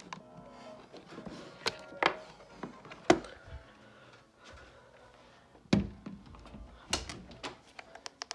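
A series of irregular sharp knocks and thuds, about a dozen, with faint short tones between them.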